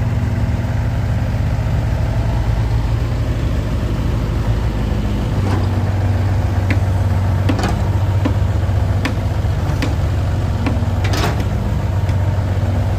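Diesel engine of a Doosan 55V mini excavator running steadily while the boom and bucket are worked, the engine note getting stronger about five seconds in. Several short sharp knocks sound over it in the second half.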